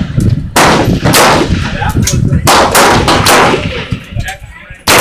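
Gunfire on a shooting range: several loud shots at uneven intervals, each followed by a trailing echo.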